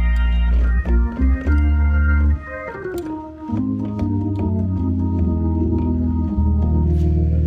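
Organ playing sustained chords over deep held bass notes, the chords changing every second or so. The bass drops out about two and a half seconds in and comes back about a second later.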